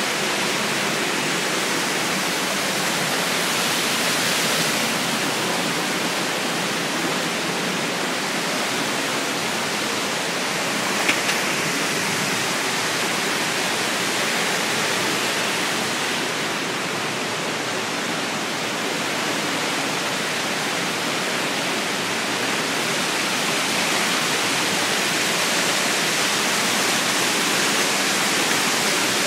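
Whitewater of a waterfall rushing over rocks close by, a steady, full-bodied roar. A single brief click sounds about eleven seconds in.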